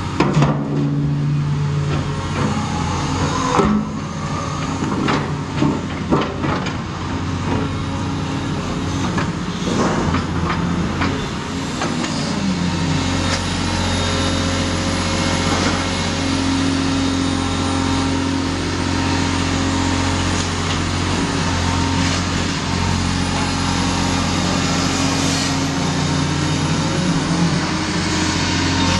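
Caterpillar 336E hydraulic excavator running steadily under load while working a sorting grab. Irregular clanks and knocks of rubble and debris come over the engine in the first dozen seconds, and after that the engine and hydraulics run on evenly.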